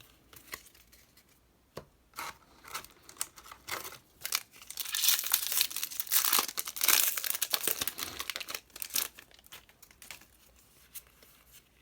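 Yu-Gi-Oh! booster pack wrapper being torn open and crinkled by hand. Scattered crackles build to a dense stretch of crinkling in the middle, then thin out.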